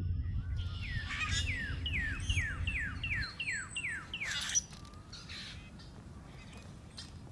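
A bird calling a rapid series of about nine falling notes, roughly three a second, that stops a little after the middle, over a low rumble of wind or background noise.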